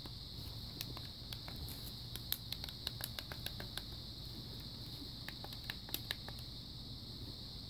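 Buttons on an Eton Zoneguard Plus weather radio being pressed one after another: soft, irregular clicks over a faint steady high hiss.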